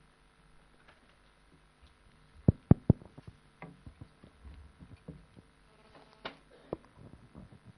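Microphone handling noise: three quick, loud thumps in a row about two and a half seconds in, then scattered light knocks and clicks.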